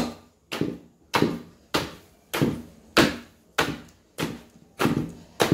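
Wooden pestle pounding palm fruits in a mortar to free the palm oil: a steady thud a little under twice a second, about ten strokes.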